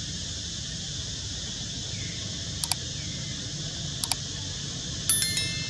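Subscribe-button overlay sound effect: two mouse clicks, each a quick double click, about a second and a half apart, then a bright bell chime near the end that rings briefly. A steady background hiss runs underneath.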